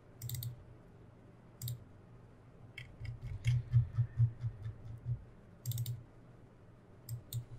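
Computer mouse clicking. There are a few separate clicks, then a quick run of about five clicks a second in the middle, then a few more near the end.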